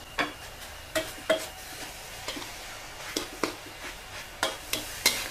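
A metal spatula stirs and scrapes a thick, dry-frying mix of grated coconut and curry paste around a large aluminium wok, over a faint sizzle. About a dozen irregular clinks and scrapes of the spatula sound against the pan.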